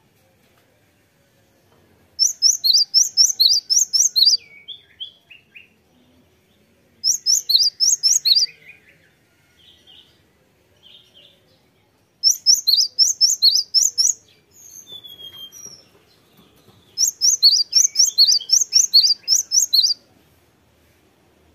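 Cinereous tit singing in four loud bouts of about two seconds each, every bout a rapid run of high, repeated two-note phrases, with a few softer, lower call notes in the gaps.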